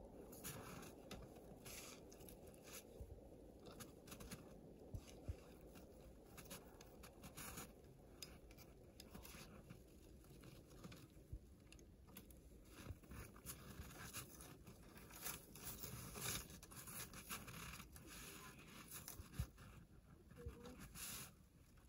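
Faint, scattered rustles, scrapes and crunches from someone crouched in snow handling a foothold trap: jacket fabric, boots shifting in snow and leaf litter, and hands at the trap.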